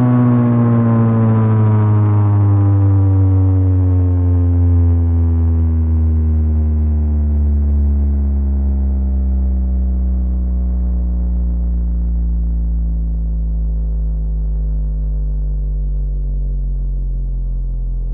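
Sentry 7V8 electromechanical warning siren winding down: its wail falls slowly and steadily in pitch throughout as the rotor coasts to a stop after power is cut.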